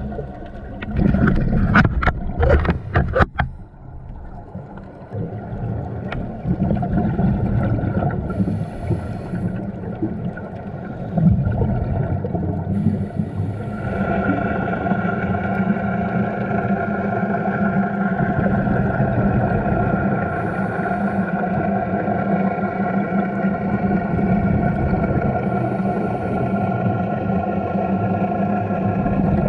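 Underwater recording: a muffled low rumble that settles into a steady, pitched hum, typical of a boat engine heard through the water. About a second in there is a short flurry of sharp clicks and crackles.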